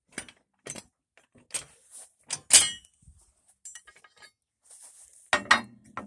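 Steel mounting pins and the spacer bar of a backhoe frame being pulled and handled: a series of metal clinks and clanks. The loudest rings out about two and a half seconds in, and a heavier clank with a lower ring comes near the end.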